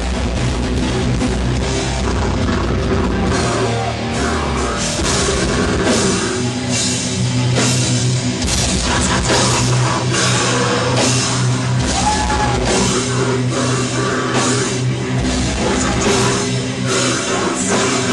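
Heavy metal music playing loudly, with distorted guitars and a drum kit keeping a steady pounding beat.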